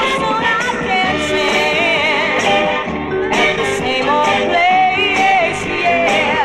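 Northern soul record: a woman singing lead with vibrato over a full band with a steady drum and cymbal beat.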